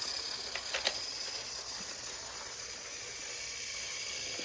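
Battery-powered toy train engines running on plastic track: a steady whir of small geared motors, with a couple of sharp clicks about a second in.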